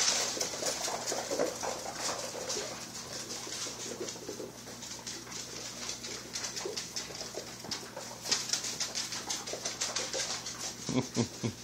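Two small puppies playing on a tile floor: rapid clicking and skittering of claws on the tiles, with small puppy whimpers and yips.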